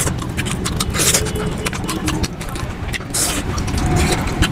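Wet chewing and lip smacking, mixed with the squelch of curry-soaked rice and mutton being squeezed by hand, all sped up to double speed: many quick clicks and smacks a second over a steady low rumble.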